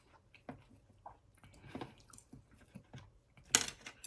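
A person chewing fried tofu: soft, wet, irregular mouth clicks, with one louder sharp click about three and a half seconds in.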